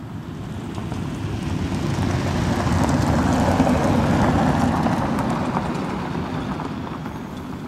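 A low-flying flying-wing aircraft passing close overhead: a noisy rush that swells to a peak about halfway through and then fades as it moves away.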